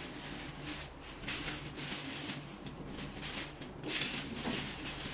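Clear plastic parts bag crinkling and rustling irregularly as it is handled and turned over.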